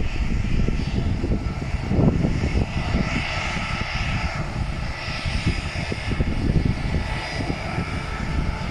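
Airliner engine noise as a plane passes low: a steady loud rumble with a rushing hiss that swells about three seconds in.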